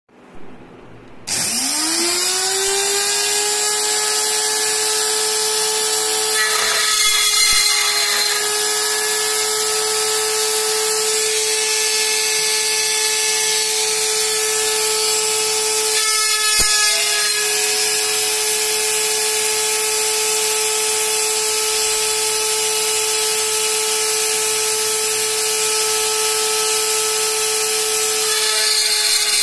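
Homemade CNC's drill spindle motor starts about a second in, rising in pitch, then runs with a steady whine while the bit drills into steel. There are three brief rougher patches as the bit cuts.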